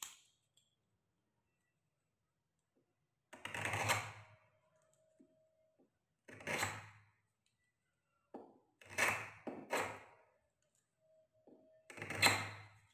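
Pen tracing around a cardboard template on a thick plastic CR eyeglass lens: about six short scratching strokes and taps of the pen tip on the lens, with a faint thin squeak held for a second or so twice.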